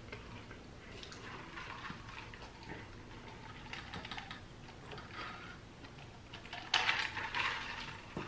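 Close-miked eating: faint chewing and small clicks of forks against plates, with a louder patch of eating noise about seven seconds in.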